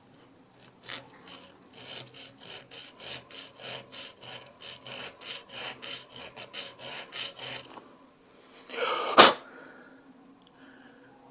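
Hand file working metal: about two to three short rasping strokes a second for several seconds, as a pistol sight is filed for a tighter fit. Near the end, one loud sharp noise.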